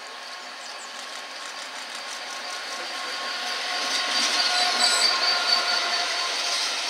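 Class 66 diesel locomotive, with its two-stroke V12 engine, running past close by at slow speed and drawing in with its coaches, loudest about four to five seconds in. Thin, steady high squeals come from the running gear as it slows.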